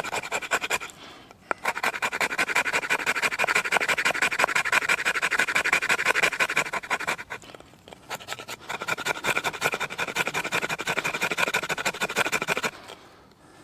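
A knife blade scraping along a stick of resinous fatwood in rapid, regular strokes, rasping off fine dust and shavings for tinder. Two long runs of scraping with a short pause in the middle, stopping shortly before the end.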